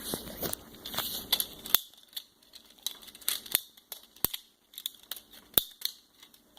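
Lego bricks being handled and pressed together: a busy rustle of plastic clicks for the first couple of seconds, then sharp single clicks every half second or so.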